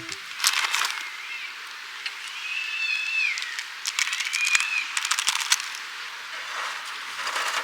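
Charcoal fire crackling and popping in clusters of sharp clicks. A bird calls three times, with thin high drawn-out notes, the middle one falling at its end.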